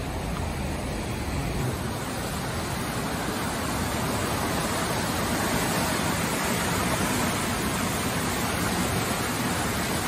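Fast glacial mountain river rushing over rocks, a steady, even wash of white-water noise that grows a little louder a few seconds in.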